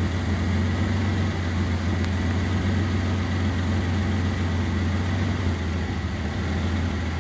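Vehicle engine idling: a steady low hum that holds level throughout, with a faint steady high tone above it.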